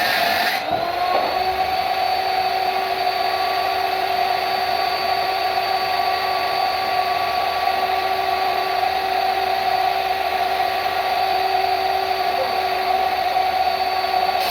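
A power tool's motor running steadily with an even whine, settling into a constant speed about half a second in.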